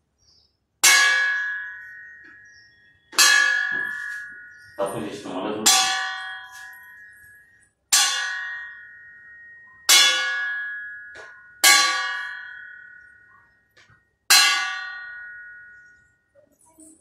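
A stainless steel plate struck seven times with a metal rod, about every two seconds, each strike ringing out and fading. It is used as a makeshift class bell.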